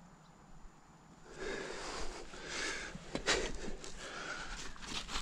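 A person breathing heavily, several noisy breaths in and out starting about a second in, with a brief click in the middle.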